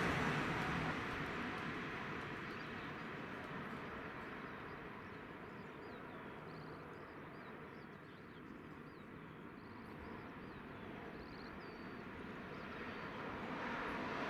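Rumble of a passing train on the main line dying away, leaving a low background in which small birds chirp, then noise building again near the end as the next train approaches.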